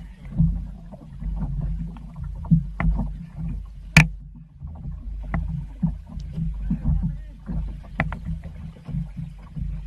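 Low, uneven rumble of a small boat at sea, with a few sharp knocks, the loudest about four seconds in.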